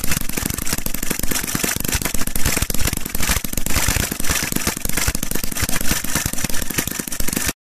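Small model engine running on a test plate, a fast, dense crackle of firing pulses; it cuts off suddenly near the end.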